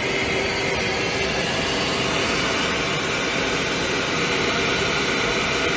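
A helicopter's turbine running steadily: a dense rush with a high, even whine over it, heard from the cockpit of an AH-64 Apache.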